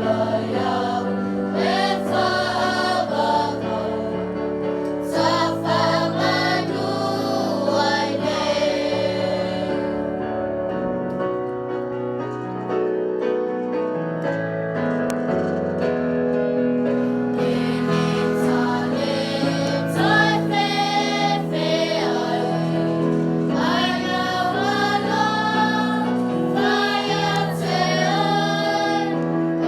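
A choir singing a hymn in long, held notes.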